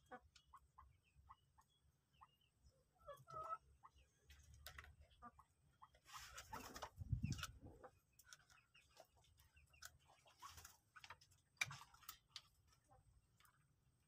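Faint, short clucking calls from common moorhens, among soft clicks of the birds pecking and scratching. A brief, louder rumbling noise comes about seven seconds in.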